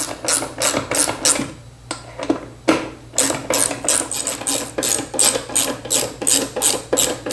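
Socket ratchet clicking in quick back-and-forth strokes, about three a second, as bolts are run in to fasten a miter saw to its plywood base. There is a short pause about two seconds in before the strokes resume and keep on steadily.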